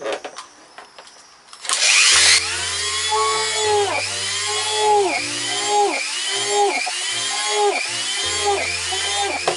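Corded handheld rotary tool (engraver) starting up about two seconds in and drilling small holes into PVC pipe. Its whine rises and falls in pitch about once every 0.7 s.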